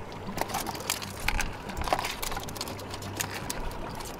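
Irregular light clicks and scrapes of metal crab tongs and live crabs knocking about inside a plastic crab trap.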